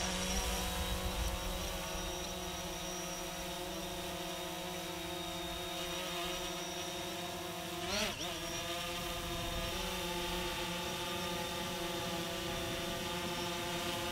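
DJI Phantom 4 Pro quadcopter hovering, its propellers giving a steady multi-tone whine as its downdraft fans a campfire. About eight seconds in the pitch wavers briefly before settling again.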